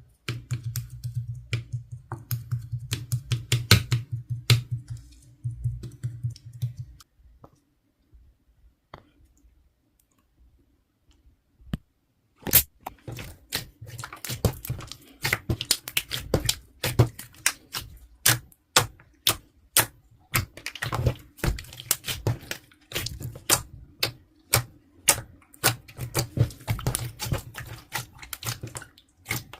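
Slime being squeezed and pressed by hand, making rapid sharp clicks and pops. It goes almost quiet for about five seconds, from about seven seconds in, then the clicking starts again and keeps going.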